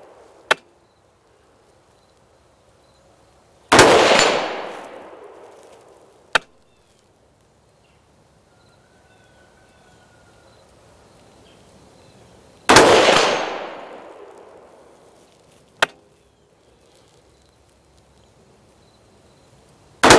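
Three single rifle shots several seconds apart, each trailing off over a second or two, the last one right at the end. A short sharp tick sounds a few seconds after each shot.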